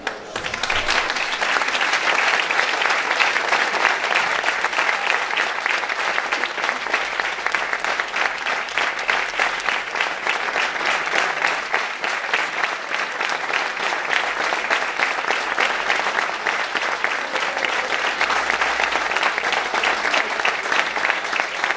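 Crowd applauding, dense and steady clapping held for about twenty seconds.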